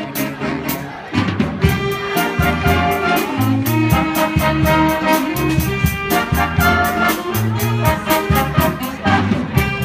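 Jazz band with a brass section (trumpets and trombones) playing a swing tune over a steady beat; the band comes in louder about a second in.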